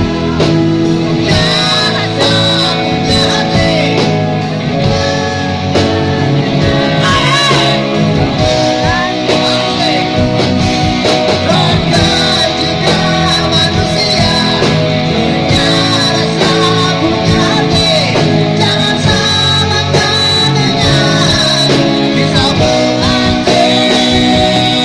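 Rock music: a singer's voice over guitar and a full band.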